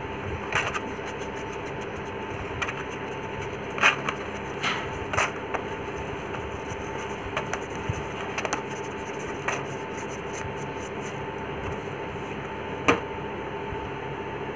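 Scattered light taps, rubs and clicks from hands working a loudspeaker cone and a glue tube, over a steady background hum with a faint high whine.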